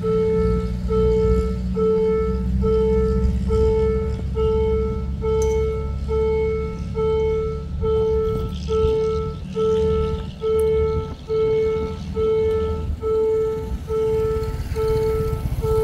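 Level-crossing warning alarm sounding an even, repeating electronic tone, about three beats every two seconds, under a low rumble that fades in the second half.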